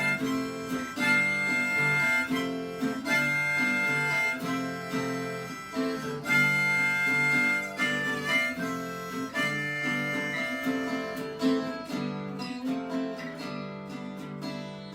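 Instrumental break of a live acoustic song: acoustic guitar with a harmonica playing the melody over it, getting a little quieter near the end.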